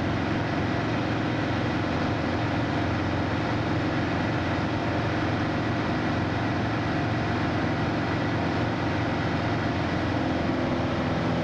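Cabin drone of a Piper PA-28 in flight: the piston engine and propeller running steadily with airflow noise over the airframe, heard from inside the cockpit. The engine's tone shifts slightly near the end.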